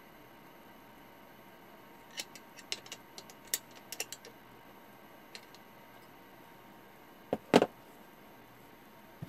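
Irregular light clicks from wire leads and metal clips being handled at a capacitor's terminals, followed by two sharper knocks in quick succession about seven seconds in, which are the loudest sounds.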